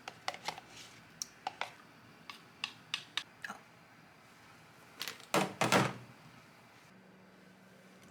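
A run of light clicks and knocks, like small objects being handled, then a louder clatter about five seconds in, followed by a faint steady low hum.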